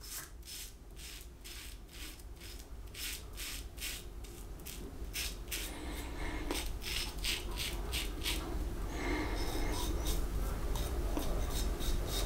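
Double-edge safety razor (Focus Tritok Concave, aluminium, with a Gillette 7 O'Clock Super Platinum blade) scraping through lathered stubble in a quick run of short strokes, the blade rasping on each pass. This is the first pass of the shave.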